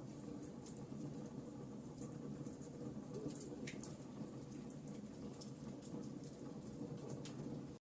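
Wood fire crackling in a fireplace: a steady low rumble of flames with irregular small pops and snaps. The sound cuts out for an instant near the end.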